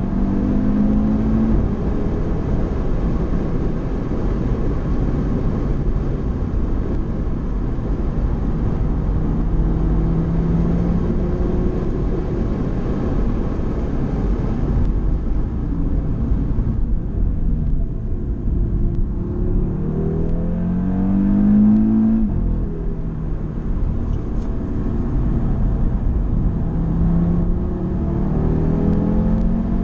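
Car engine heard from inside the cabin while driven at speed, its revs climbing and falling with gear changes and lifts, over steady tyre and road noise. The revs climb to a high point about 22 seconds in, then drop sharply.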